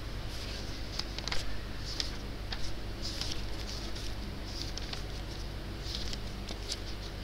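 Scattered light clicks and brief rustles, irregular and a few per second in places, over a steady low hum.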